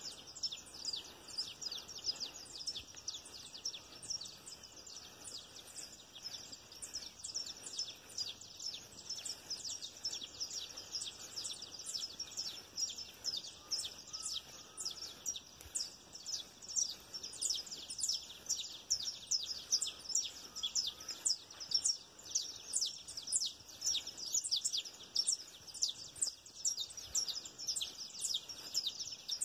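Many birds chirping at once: a dense, continuous chorus of short, high chirps, each dropping quickly in pitch.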